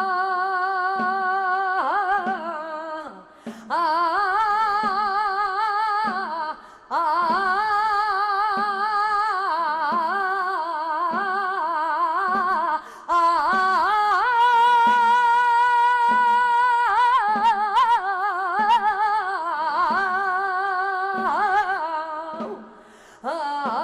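A solo singer holding long, wavering flamenco-style melismas with no words, sliding between notes, over an orchestral accompaniment with a steady low beat about twice a second. The voice pauses briefly several times between phrases.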